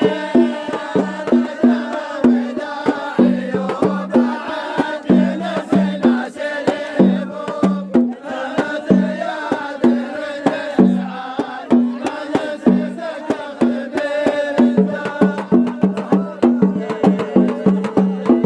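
Traditional-style music: a low-pitched drum beats a steady rhythm under chanted singing.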